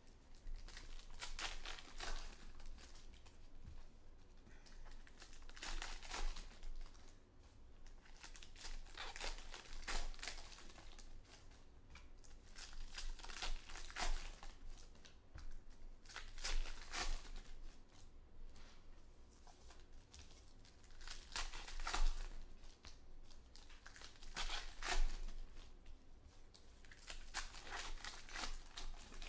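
Baseball card pack wrappers being torn open and crinkled by hand, in bursts of rustling every few seconds.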